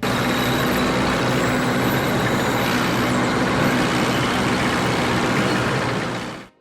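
A truck running steadily, with even engine and road noise that fades out quickly near the end.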